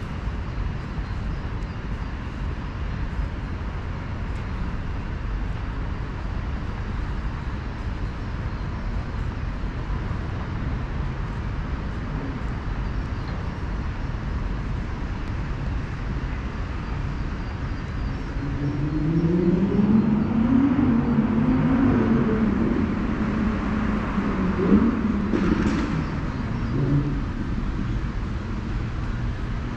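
Steady rumble of road traffic. About two-thirds of the way in, a motor vehicle's engine grows louder, its pitch rising and falling for several seconds as it passes, then fades.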